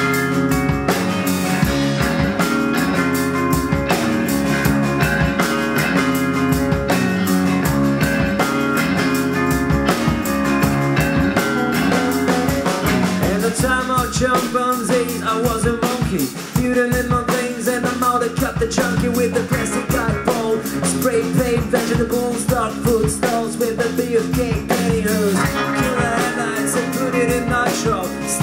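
Live rock band playing: electric guitars, bass guitar and drum kit, with a brief drop in level about sixteen seconds in.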